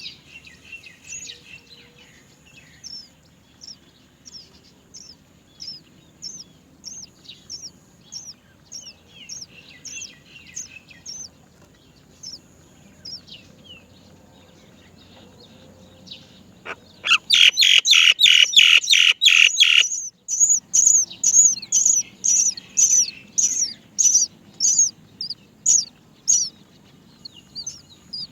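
Great myna nestlings making begging calls: short, high, falling chirps about two a second, breaking into a loud, fast burst of calls about seventeen seconds in, then staying louder for several seconds before easing off.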